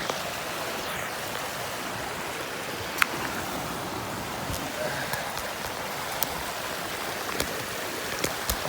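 A small forest stream running steadily, with a few sharp clicks over it, the loudest about three seconds in and several fainter ones near the end.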